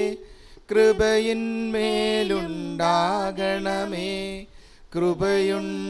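Slow Malayalam liturgical hymn sung in long held notes, a plea for the Lord's mercy, with short breath pauses near the start and again about five seconds in.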